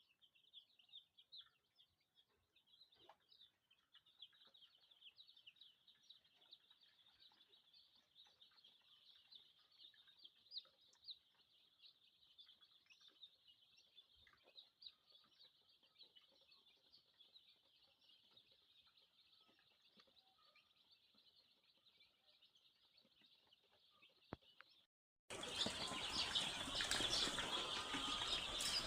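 A flock of young ISA Brown pullets chirping and cheeping continuously, many overlapping calls. Faint at first; about 25 seconds in it cuts abruptly to much louder chirping with a hiss behind it.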